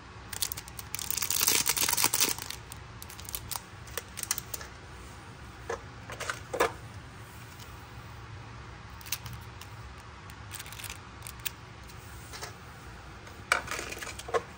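Small plastic wrapper of a miniature toy food piece crinkling for about a second, followed by scattered light clicks and taps of tiny plastic pieces and containers being handled.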